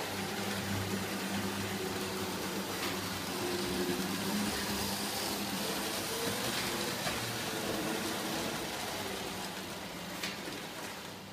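Lionel O gauge toy trains running on three-rail track: a steady electric motor hum with a rolling rattle of wheels on the rails and a few light clicks, fading a little near the end as the cars pass.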